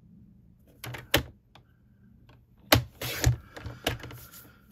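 Paper trimmer cutting a sheet of cardstock: a couple of sharp clicks about a second in, then a louder click and a short rasp as the blade slides through the card, followed by a few knocks.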